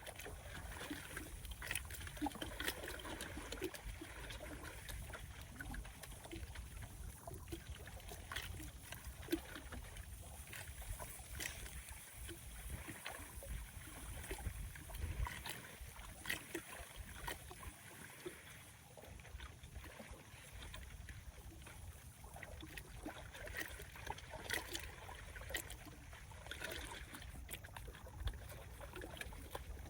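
Small wind-driven waves lapping and splashing against a lakeshore, with many irregular splashes, over a low rumble of strong wind on the microphone.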